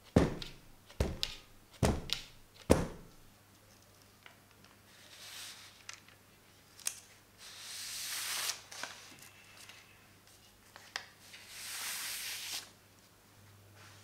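A metal baking tray of piped macaron shells dropped onto the table four times in quick succession, each a sharp knock, to release air bubbles from the batter. Then paper template sheets are slid out from under the baking paper in three soft, hissing pulls.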